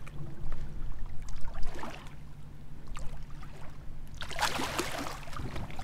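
Water sloshing around a hand-held blue catfish as it is eased back into the water, then a louder splash lasting a second or so, about four seconds in, as the released fish kicks away. A steady low hum runs underneath.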